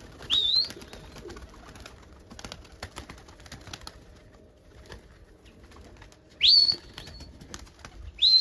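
Three short, sharp rising whistles: one at the start and two near the end, each sweeping steeply up and holding a moment at the top, the last one with a longer tail. This is a pigeon fancier's whistle call to the flying birds. Faint scattered clicks sound between the whistles.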